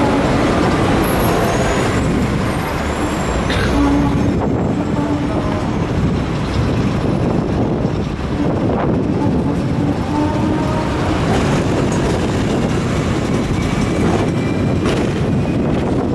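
Hong Kong double-decker tram running along its street rails: a steady rumble of wheels and motor, with city traffic, buses among it, going by around it.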